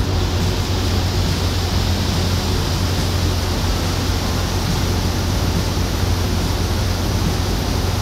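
Harvest machinery running steadily: a heavy diesel engine's low hum under a broad, even rushing noise, with no change in pace.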